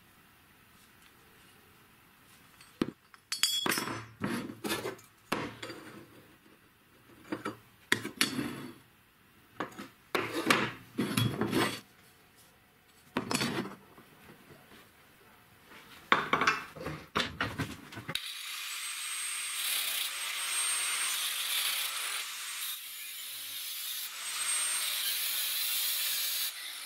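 Steel parts clinking and scraping as they are handled and fitted together on a wooden bench, in short irregular bursts. About two-thirds of the way in, an angle grinder with a cutting disc starts cutting through a square steel tube: a steady hissing grind with a high whine.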